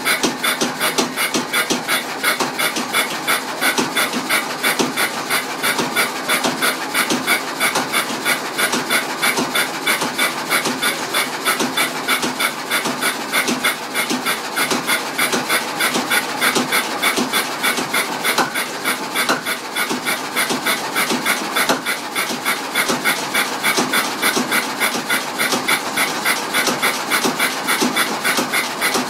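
Engine running on petrol with a rapid, even exhaust beat. About a second in it starts misfiring at random, missing some of its firing strokes.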